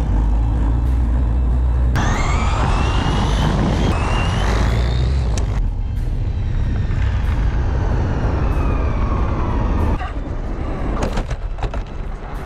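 Traxxas Rustler VXL brushless RC stadium truck at full speed, heard from a camera riding on the truck. The whine of its motor and gears rises steeply about two seconds in as it accelerates, then falls away slowly as the truck slows, over heavy wind and road rumble. Near the end it quietens, with a few sharp clicks.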